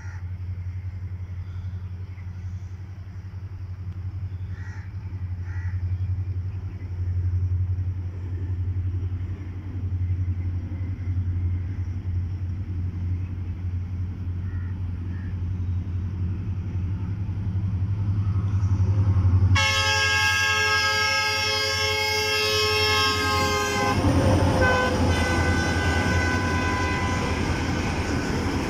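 Approaching freight train: a low rumble grows steadily louder, then the locomotive's horn sounds one long blast of about four and a half seconds, followed by the louder noise of the train passing close.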